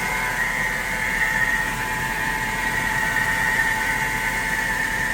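Mercedes S550's M273 V8 idling steadily in the engine bay, with a steady high whine over the running. It is running fine after a heater control valve replacement.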